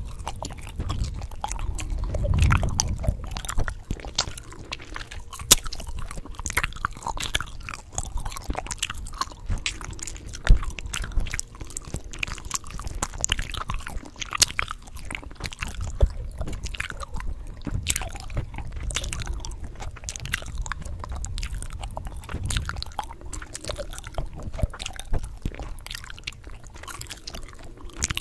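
Gum chewing close to the microphone: quick wet smacks, clicks and snaps of the gum, with a few sharper pops.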